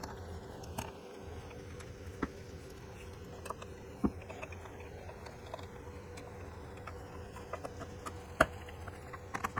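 Small clicks and taps of screws and a screwdriver on the plastic housing of a ProTeam Super Coach Pro 10 vacuum as the screws are set back in, with a louder knock about four seconds in and a sharper one near the end, over a faint steady hum.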